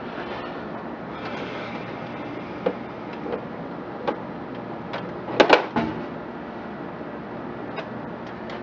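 Steady hum with a few scattered clicks and knocks; the loudest, a quick cluster of knocks, comes about five and a half seconds in.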